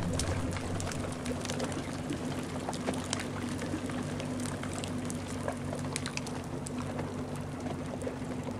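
A small landslide of sand, mud and pebbles pouring down a frozen mud cliff. It is a steady hiss of running sand peppered with the ticks of falling stones, over the steady low hum of a boat motor.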